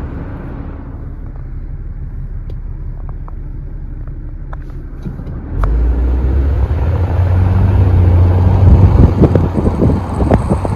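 Car driving, a steady low rumble that abruptly gets much louder about halfway through, turning into a deep hum with choppy, rapidly fluctuating noise that grows toward the end.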